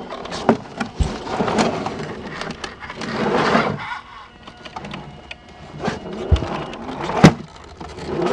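Small RC scale crawler grinding slowly over boulders: its tyres and chassis scrape, crunch and knock on rock and dry leaves in irregular clicks, with a louder crunching stretch about three seconds in and one sharp knock near the end, while its small electric motor and gears whine faintly.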